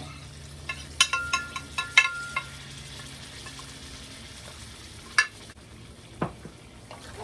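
Chicken frying in oil in a skillet, a steady sizzle, while a metal spoon clinks sharply several times about a second in as dry spice powders are scraped off a plate into the pan. A single click and a duller knock come near the end.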